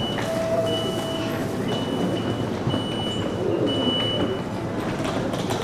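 Short high electronic beeps repeating about once a second, stopping about four seconds in, over the steady background noise of a railway station concourse.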